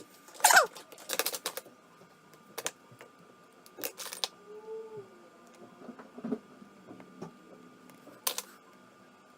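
Scattered small clicks and taps of hand tools and small phone parts being handled during a phone repair, the loudest about half a second in and a quick cluster just after a second in.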